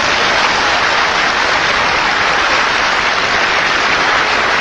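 A large audience of delegates applauding with dense, steady clapping.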